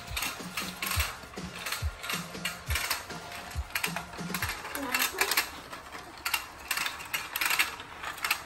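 Battery-powered fishing game toy running, its rotating pond's gears giving a rapid clicking whir, with a low knock about once a second through the first half.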